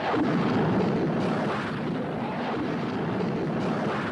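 A steady rushing noise that comes in abruptly and holds level.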